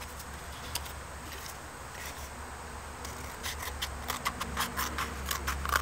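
Scissors cutting a cardboard toilet paper roll down the middle. It is faint at first, then a quick run of short snips comes from about halfway through.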